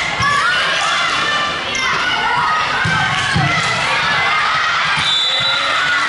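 Volleyball game in a large hall: girls' voices shouting and calling over one another, with a few dull thuds of ball contact.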